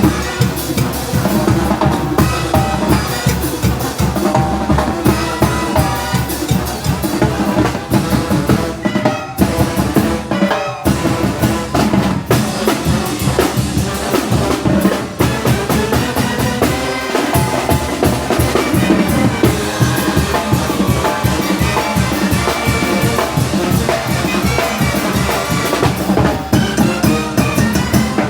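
Oaxacan brass band (banda de viento) playing a lively muertero/calenda rhythm: brass melody over a steady beat of bass drum and snare.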